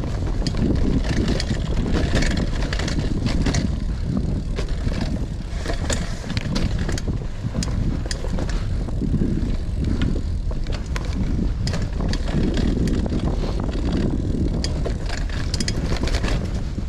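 Cannondale CAADX cyclocross bike on dirt trail: wind rushing over the microphone and tyres rolling, with frequent sharp clicks and rattles from the bike over bumps.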